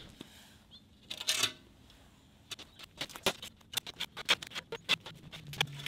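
Handling noise from glass panes being lifted off freshly poured concrete and set aside: a short scrape about a second in, then a run of irregular light taps and clicks, several a second.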